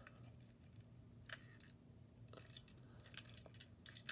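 Near silence, with a few faint clicks of a plastic Tomy toy engine and tender being handled.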